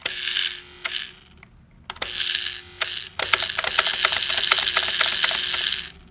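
The small electric motor and plastic gear-and-cam mechanism of a 1980s Teddy Ruxpin knockoff toy bear, which works its mouth and eyes, runs in three short spurts with a steady hum and fast clicking rattle. The last spurt is the longest, lasting about two and a half seconds.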